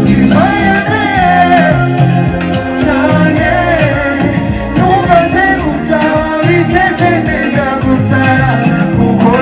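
Loud pop music: a singing voice over a repeating bass line and drum beat.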